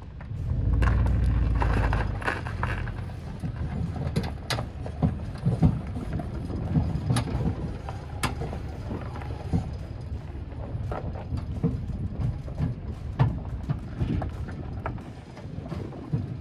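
A vehicle towing a car on an A-frame tow bar, driving. A loud low rumble about a second in, then irregular clanks and rattles over steady low road noise.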